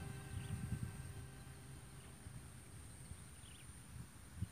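Faint outdoor ambience by a rural pond: wind rumbling on the microphone, a few short bird chirps, and a steady high-pitched tone in the background.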